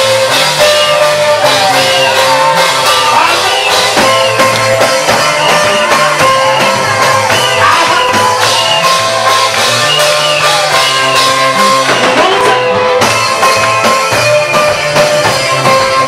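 Band music with guitar and drum kit: a held, wavering melody line over a steady drum beat.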